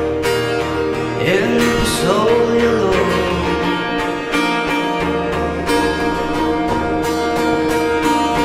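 Amplified acoustic guitar strumming chords through a PA in an instrumental break of a song, with a short wordless vocal glide between about one and three seconds in.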